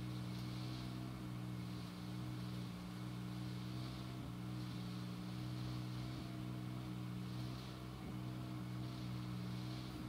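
A motor running steadily, a low even drone.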